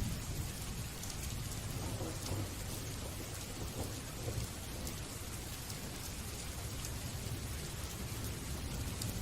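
Steady rain falling: an even hiss with a constant low rumble underneath and a few faint drop ticks.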